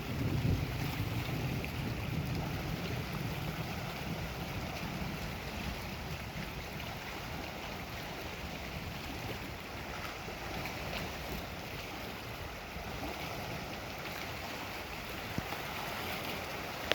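Steady rush of wind and Lake Superior waves. A low rumble fades away over the first couple of seconds.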